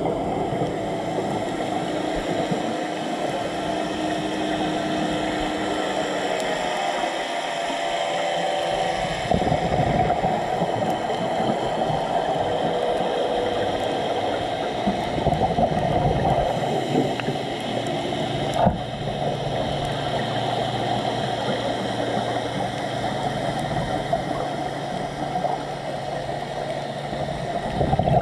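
Steady underwater noise picked up through a camera's dive housing: a muffled wash with a faint hum whose pitch shifts now and then, and one sharp click about nineteen seconds in.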